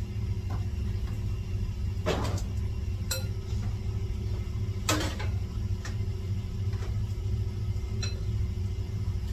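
Pots and metal utensils knocking and clinking about seven times at uneven intervals, some with a short ring, over a steady low hum.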